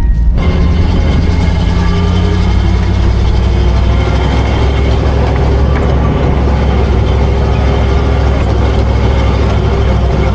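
A vehicle engine running steadily with a loud, low, unbroken rumble.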